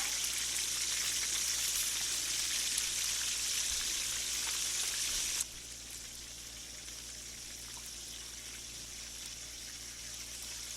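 Chicken pieces sizzling in hot ghee as they brown, a steady frying hiss. About halfway through the sizzle drops abruptly to a softer level and carries on.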